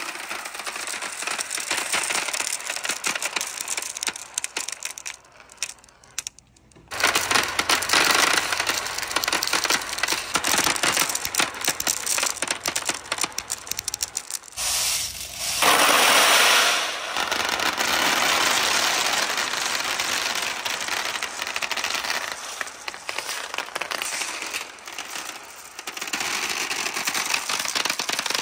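Many glass marbles rolling down a perforated board track and clacking into one another as they pile up: a dense, continuous clatter of glass clicks. It dies away briefly about six seconds in, then surges back, loudest around the middle.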